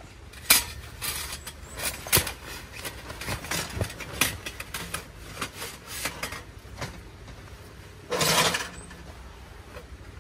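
Metal wood-stove chimney pipe sections knocking, clinking and scraping as they are slid together and fitted onto the stove, with a longer, louder scrape about eight seconds in. A low steady rumble runs underneath.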